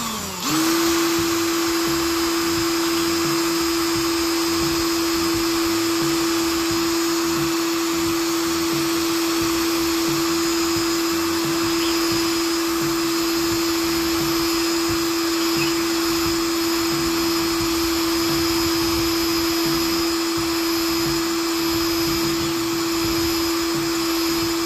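Handheld electric drill running at constant speed, boring into an old battery. It comes up to speed about half a second in, then holds one steady whine with a hiss above it.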